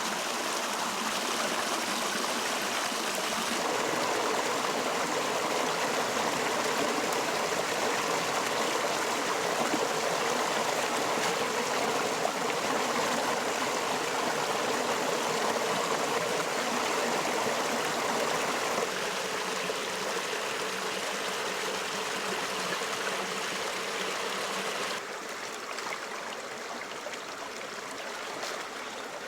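River water flowing and trickling, a steady rush of running water. Its tone shifts a couple of times, and it drops a little quieter near the end.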